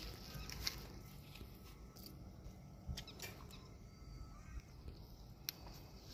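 Faint outdoor background with a few scattered short, sharp clicks.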